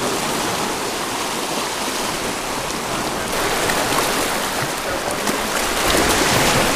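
Steady rushing wash of ocean surf breaking along the shoreline, growing a little louder near the end.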